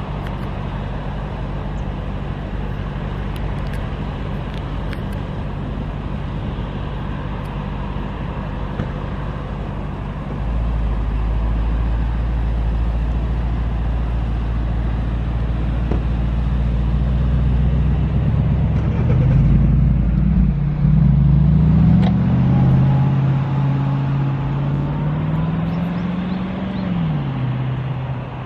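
Jet airliner engine noise: a steady roar as a twin-engine jet climbs away after takeoff. About ten seconds in, a deeper rumble joins. From about eighteen seconds, a louder engine hum wavers up and down in pitch; this is the loudest part, and it drops away near the end.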